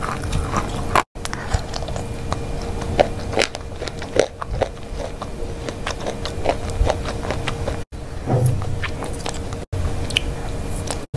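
Close-miked mouth sounds of chewing and crunching Milkybar white chocolate: many small crisp crunches and clicks over a faint steady hum, broken a few times by a split-second dropout.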